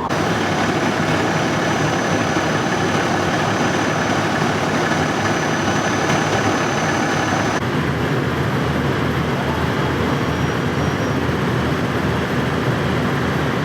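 Fire apparatus engine running steadily with a low, heavy hum; the background hiss changes abruptly about halfway through.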